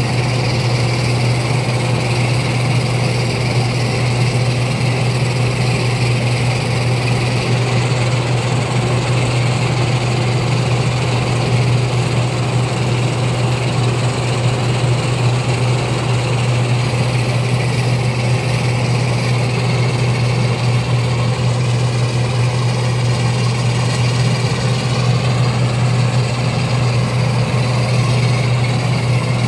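AG120 rice combine harvester running steadily, its engine and machinery making a constant low hum that holds the same pitch and loudness throughout.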